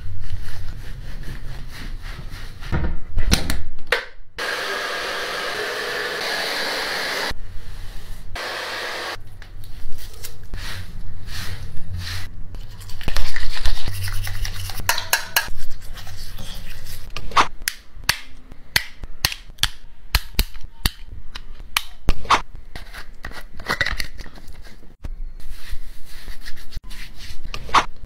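Rubbing and scraping sounds of a dog being groomed: a towel rubbed over its fur and a toothbrush scrubbing its teeth, with many short clicks and scrapes. About four seconds in, a steady rushing hiss runs for about three seconds.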